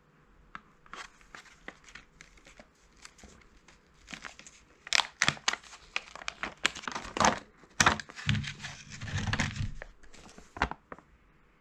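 Plastic blister pack of a chocolate snack crinkling and crackling as its printed backing sheet is picked loose and peeled off by hand. Sharp crackles come sparsely at first, then louder and thicker about halfway, with a longer tearing rasp near the end as the sheet comes away.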